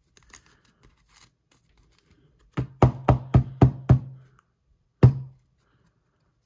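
A trading card going into a hard plastic toploader: faint plastic rustling, then the holder knocked on a table six times in quick succession, about four a second, to settle the card, and one louder knock a second later.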